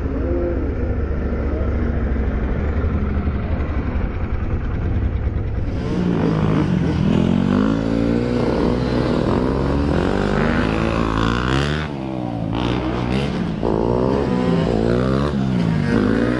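Motorcycle engines: a steady low engine rumble close by, then from about six seconds in dirt bike engines revving up and down again and again as they pass, their pitch rising and falling.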